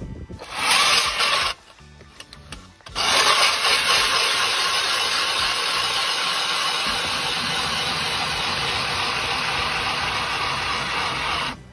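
ION X battery-powered electric ice auger grinding down through the ice. It runs about a second, pauses, then runs steadily for about eight seconds and cuts off suddenly.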